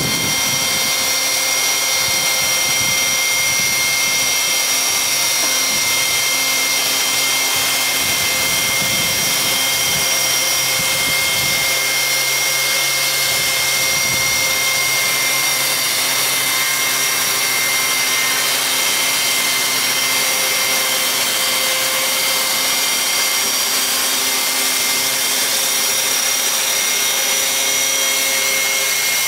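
Electric chainsaw mill with a 3/8-inch ripping chain running under automatic feed, ripping steadily along an oak log. A steady, high-pitched whine sits over the chain's cutting noise throughout.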